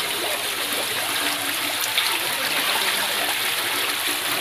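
Steady rush and splash of water, with small splashes scattered through it.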